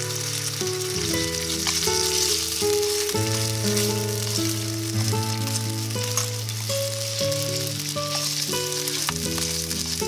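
Bacon and sliced garlic sizzling steadily in oil in a frying pan over a wood fire. Background music of held notes plays along with it.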